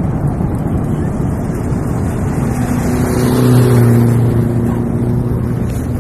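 Loud, steady rumbling noise of wind on the microphone, with a motor vehicle's engine hum rising over it about halfway through, loudest just after the middle and fading near the end.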